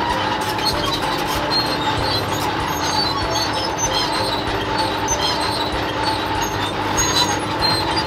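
Cartoon sound effect of a crawler excavator driving away: a steady engine rumble with continuous clanking and rattling.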